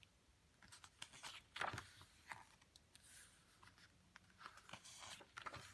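Faint rustles and light taps of paper and cards being handled, a few short scrapes scattered through an otherwise quiet room.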